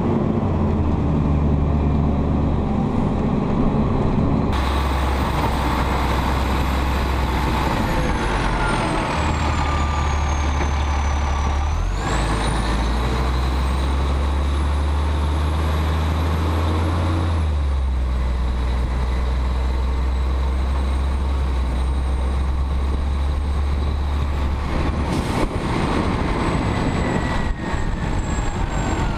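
Automated side-loader garbage truck's engine running, its pitch stepping up and down several times, with a faint high whine gliding over it.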